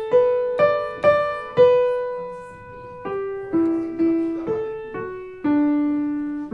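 Background music: a slow piano melody played one note at a time, each struck note left to ring and fade. The notes come about twice a second at first, then more slowly, ending on a longer held note.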